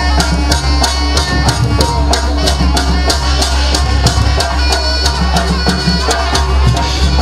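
Traditional jaranan accompaniment music: hand drums keeping a quick, steady beat over sustained pitched tones.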